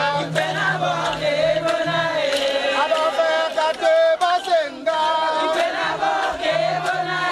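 Ejagham mourners chanting and singing a funeral song for a dead king, several voices together in long, wavering held notes.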